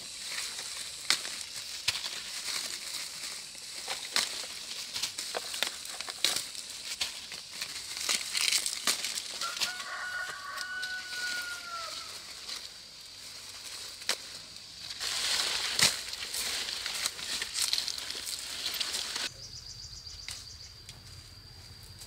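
Continuous rustling and crackling with many sharp snaps, and a rooster crowing once about halfway through. Near the end the rustling stops, leaving a steady high-pitched drone.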